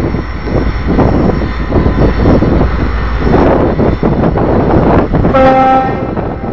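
Diesel locomotive engine running loudly, with a single short train-horn blast of about half a second a little over five seconds in.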